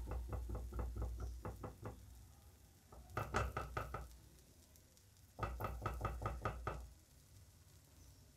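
Spatula knocking rapidly against a frying pan and the omelette's edge, about six taps a second, in three short runs: the first lasting about two seconds, then two briefer runs, a little past three seconds in and again past five seconds.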